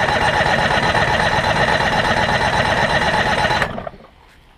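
Two-stroke Mariner outboard engine being cranked over on its starter with both spark plugs out and a compression gauge in the bottom cylinder. A steady, evenly rhythmic spinning crank that stops about three and a half seconds in.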